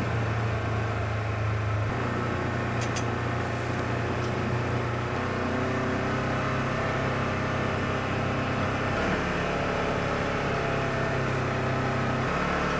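Side-by-side utility vehicle's engine running steadily while driving, its note stepping down about nine seconds in and back up near the end as the speed changes.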